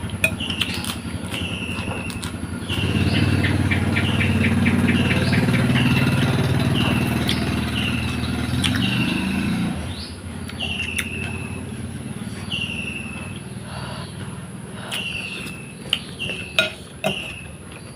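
A bird calling over and over, a short falling note roughly every half second to a second. From about three seconds in to about ten seconds a motor engine runs at a steady pitch, the loudest sound, and a few sharp knocks come near the end.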